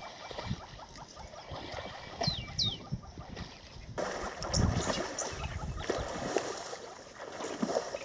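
Birds calling at a muddy waterhole, including two quick descending whistles about two seconds in. Low splashing and sloshing comes from buffalo and white rhinos moving in the mud.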